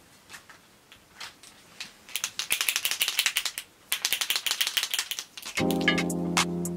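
A paint marker shaken hard, its mixing ball rattling in a fast run of clicks for about three seconds, after a few scattered handling clicks. Music with steady notes comes in near the end.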